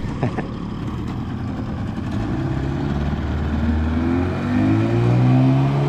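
Small tiller outboard motor on an aluminum jon boat speeding up as the boat pulls away, its pitch and loudness rising through the second half.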